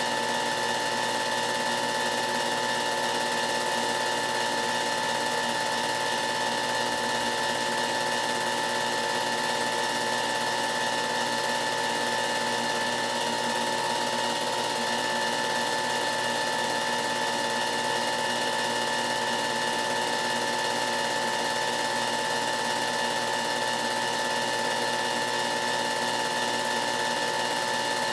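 Movie projector running steadily: an even motor whir with a fast mechanical clatter and a constant whine.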